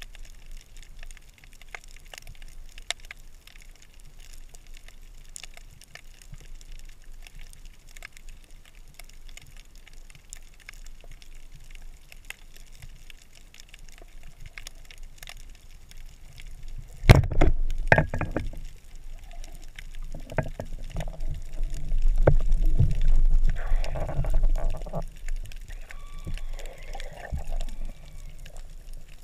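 Underwater ambience through a GoPro's waterproof housing: a low hiss with scattered faint crackling clicks while the diver lies still on the bottom. About 17 seconds in comes a sudden loud knock, followed by louder low rumbling and swishing water noise as the diver moves and swims up toward the surface.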